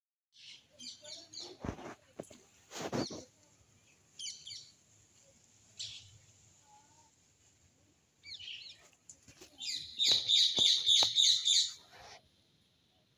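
Small birds chirping in short scattered bursts, with a rapid run of high chirps about ten seconds in as the loudest part. A couple of short knocks come in the first few seconds.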